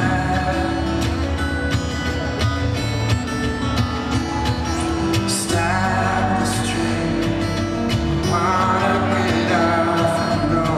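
Live acoustic guitar, played solo, with a man singing over it from about halfway through.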